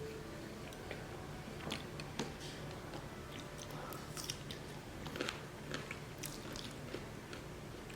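A person chewing food close to the microphone, with scattered short clicks at irregular intervals.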